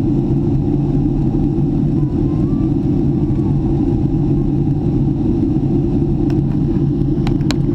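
Jet airliner cabin noise in flight: a steady, heavy low drone of engines and airflow, with a faint constant hum above it. A few sharp clicks near the end.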